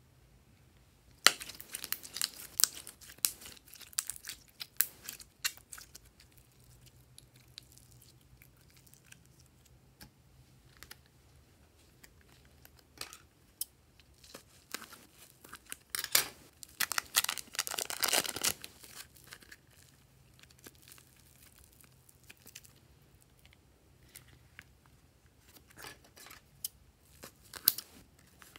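Plastic wrapping crinkling and crackling as it is handled and snipped open with scissors, in irregular bursts of sharp crackles and clicks with quiet gaps between.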